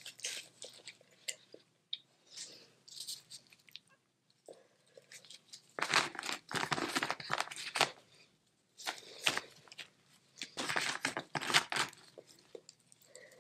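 Boiled crawfish being peeled by hand: light clicks of shell, then two longer bouts of dense crackling and tearing as the shell is cracked and pulled away, about six and nine seconds in.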